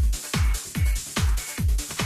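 Background music with a heavy, steady kick-drum beat, about two and a half beats a second.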